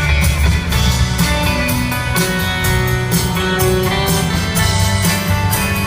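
Live rock band playing an instrumental passage: guitars with bass and drums, steady beat and no singing.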